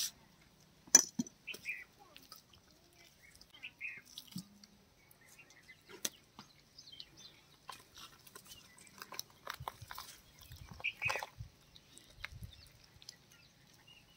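Wet handling sounds of a raw country chicken carcass being cut and pulled apart by hand on a wet stone slab: scattered sticky clicks and small taps, with one sharp knock about a second in.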